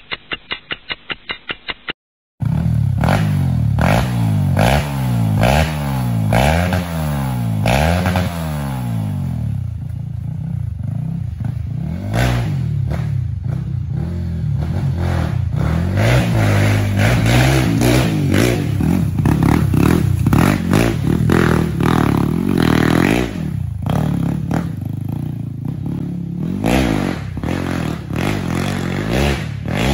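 A fast run of even clicks for about two seconds at the start, then a bored-out Honda CRF trail bike's single-cylinder engine running and revving up and down again and again as it is ridden.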